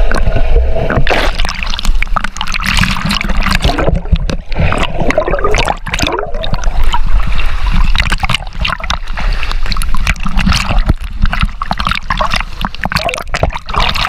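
Pond water splashing and sloshing around a waterproof camera held by a swimmer as it dips under and comes back above the surface, with muffled underwater gurgling and bubble crackle and a constant low rumble.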